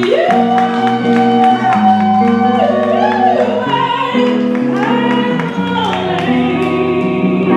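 A woman singing long held notes over a sustained instrumental accompaniment.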